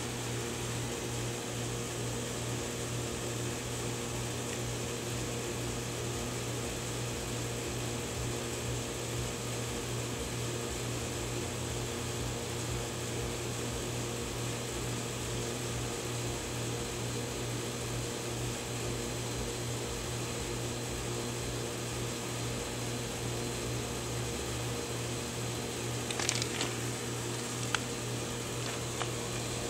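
Steady hum of running machinery, a low drone with a few fixed tones over a constant hiss. A few brief clicks near the end.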